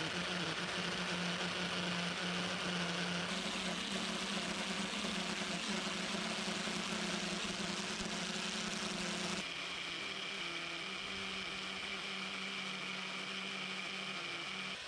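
Festool TS55 plunge-cut circular saw running steadily as it cuts along a guide rail through an oak beam, a constant motor hum over the cutting noise. The tone changes abruptly twice, about 3 seconds in and again about 9 seconds in.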